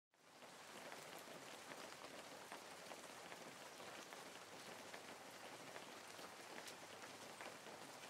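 Faint, steady patter of light rain: a soft hiss dotted with many small drop ticks.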